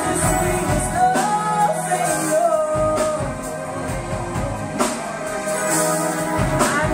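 Live band music: a woman singing a soul-funk song with melismatic runs, backed by drum kit, electric bass and keyboards.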